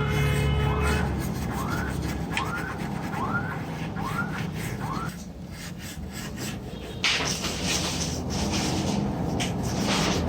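Repeated rubbing or scrubbing strokes, about one every two-thirds of a second, over a steady low hum; the strokes stop about halfway through, and about seven seconds in a broad hiss starts and runs on.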